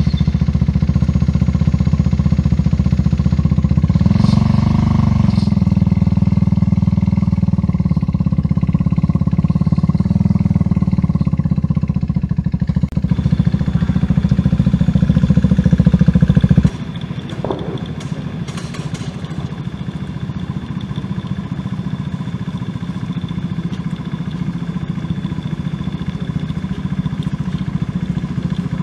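Formula Student race car's engine running just after starting, revved once about four seconds in, then carrying the car off. About two-thirds of the way through the sound drops abruptly to a quieter, lighter engine note as the car drives.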